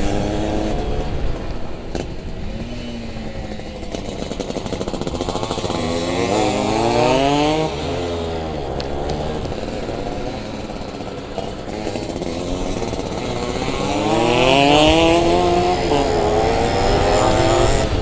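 Yamaha F1ZR's two-stroke single-cylinder engine heard from the rider's seat, revving up and easing off repeatedly as the bike is ridden. Its pitch climbs high twice, about six seconds in and again about fourteen seconds in.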